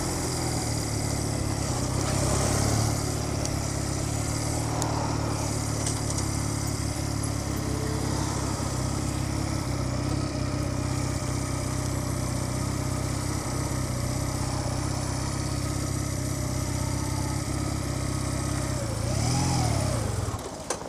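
Cruiser motorcycle engine running steadily at low speed while being ridden, with a brief rise and fall in revs near the end.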